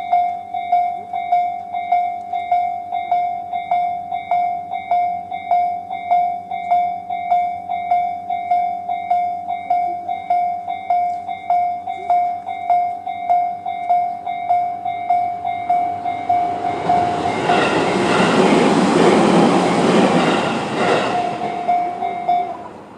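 Japanese level-crossing alarm, the slow-tempo Tobu 'sound C' type sounding from both sides, ringing a steady strike about twice a second. A Tobu 20400-series electric train passes over the crossing in the last third, loudest in the middle of its pass. The alarm stops shortly before the end.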